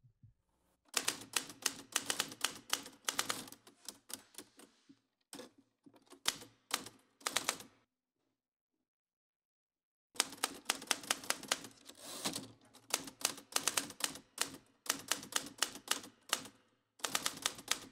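Old-fashioned manual typewriter played as a percussion instrument: rapid runs of key strikes in bursts with short pauses between them, and a silence of about two seconds past the middle.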